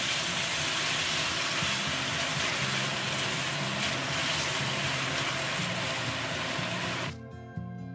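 Sweet-and-sour sauce sizzling in a hot wok as sliced bell peppers and onion are stir-fried with a silicone spatula, an even sizzle that cuts off abruptly about seven seconds in as music takes over.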